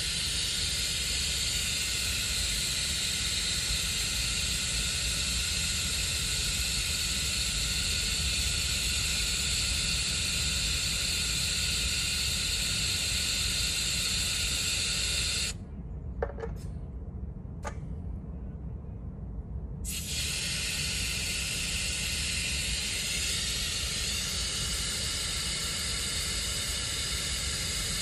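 Compressed air hissing steadily into a well pressure tank's air valve, charging its precharge toward 35 PSI. Past the middle the hiss stops for about four seconds, with two sharp clicks, then starts again. A steady low hum runs underneath.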